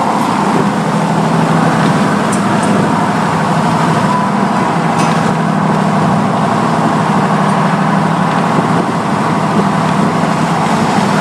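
Steady drone of a vehicle cruising at highway speed, engine and road noise heard from inside the cab.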